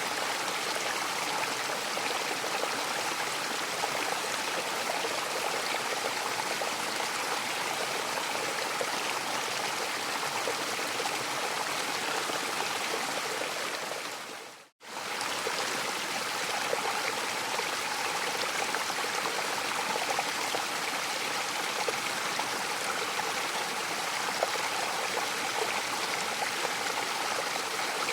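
Steady rushing water of a mountain waterfall. About halfway through, the sound fades out to silence and comes straight back.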